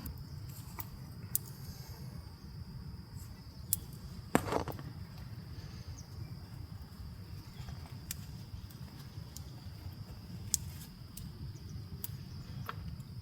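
Insects chirring in one steady high note over a low outdoor rumble, with scattered small clicks and one louder knock about four seconds in.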